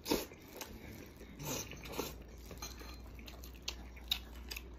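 Close-up chewing and wet mouth smacks of a man eating tender stewed lamb, with a loud smack just after the start and a few softer ones later.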